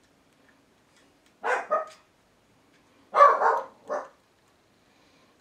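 Dog barking: two quick barks about one and a half seconds in, then three more from about three seconds in.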